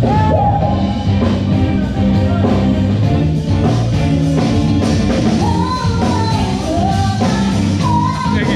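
Loud rock music from a band with a singer, the sung melody line carrying over guitar and drums.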